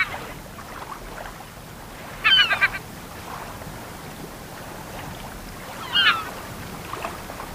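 Large gulls calling: a short burst of harsh, several-note calls about two seconds in and another briefer one about six seconds in, over a faint steady hiss.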